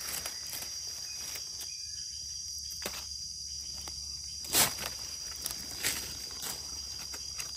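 Steady high-pitched drone of forest insects, with a few short sharp crackles in the leaf litter, the loudest about halfway through.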